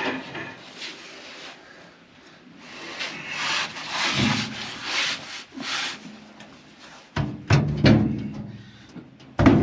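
Steel feederhouse floor plate scraping and sliding against the combine's feederhouse as it is shoved into place, with a few heavy metal clunks near the end.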